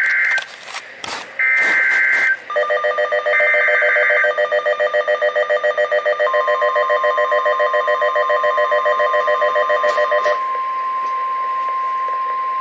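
Emergency Alert System signal on NOAA Weather Radio. It opens with three short bursts of screeching SAME header data. A rapid pulsing multi-tone alarm beep follows, and the steady 1050 Hz warning alarm tone begins under it about six seconds in. The tone continues alone after the beeping cuts off about ten seconds in, heralding a severe thunderstorm warning.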